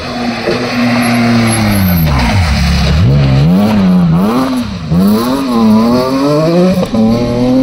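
BMW E36 3 Series rally car taking a corner at speed. Its engine revs fall sharply as it slows for the bend, rise and fall several times quickly through it, then climb hard as it accelerates away, with gear changes about five and seven seconds in.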